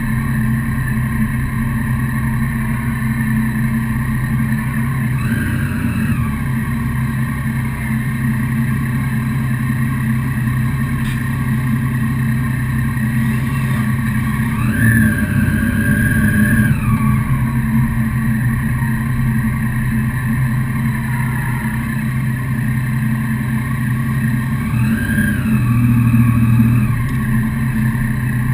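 Motorcycle engine idling and running at low speed, with short rises and falls in revs about five seconds in, around the middle and near the end.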